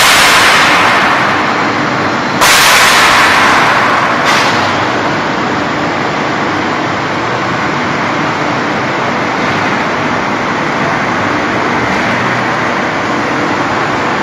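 Quartz slab production line machinery running with a steady noise. Three loud hissing bursts start suddenly, at the opening, about two and a half seconds in and about four seconds in, and each fades over a second or two.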